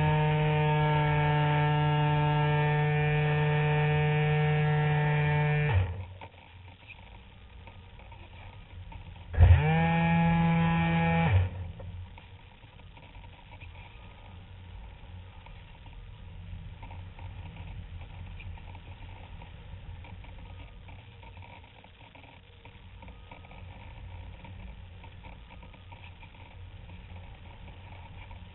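Spectra RC glider's electric motor and propeller running with a steady whine, heard from a camera on the fuselage. The motor cuts off about six seconds in, then spins up again with a quickly rising pitch and runs for about two seconds before cutting off. Only an even rush of air remains while the glider glides.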